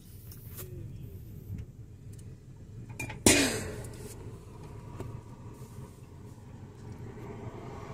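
Low steady rumble of an idling motor vehicle, with one sharp knock a little over three seconds in.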